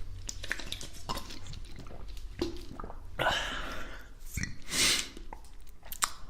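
Close-miked wet mouth noises of someone eating: small smacking clicks, with a couple of breathy rushes about three and five seconds in.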